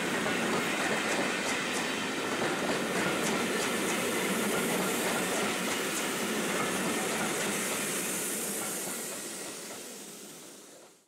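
Railway passenger coaches rolling past, a steady rumble and hiss with wheels clicking over the rail joints in the first few seconds; the sound fades away near the end.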